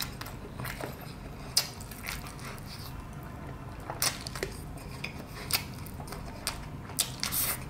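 Close-miked eating of crispy fried chicken: scattered short, sharp crunches and mouth clicks as the meat is pulled off and chewed, over a low steady hum.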